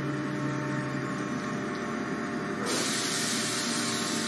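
Electric commuter train (Z5600 double-deck unit) humming while standing at a station, with several steady tones; about two-thirds of the way in, a steady hiss joins and keeps going.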